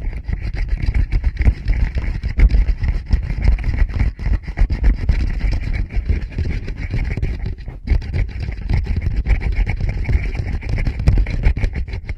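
Fingers rubbing and tapping directly on a Tascam recorder's microphones: a dense, unbroken run of scratchy rubbing and soft thumps, heavy in the bass, with a brief break about two-thirds of the way through.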